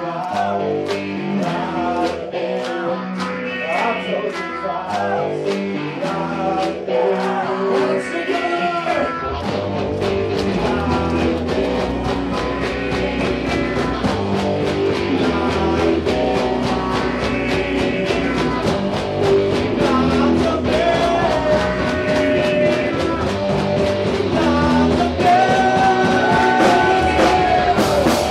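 A live rock band playing: electric guitar over a steady drum beat, with the bass coming in strongly about nine seconds in.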